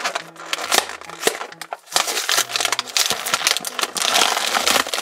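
Clear plastic toy packaging crinkling and crackling in the hands as it is opened: a dense, continuous run of small crackles.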